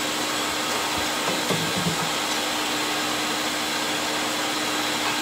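Kitchen range hood exhaust fan running steadily: a constant whooshing rush with a steady hum.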